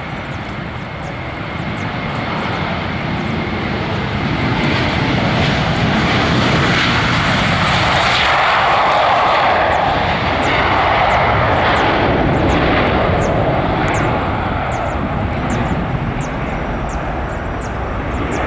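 Finnair Airbus A321's twin jet engines at take-off thrust during the take-off roll. The jet noise swells as the aircraft accelerates past, is loudest around the middle, then eases as it moves away toward lift-off, with a steady whine audible in the first few seconds.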